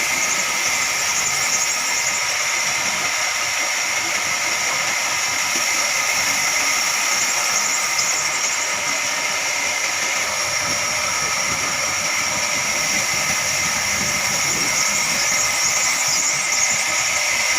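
Large horizontal band sawmill cutting a log, with a steady high whine over a hiss.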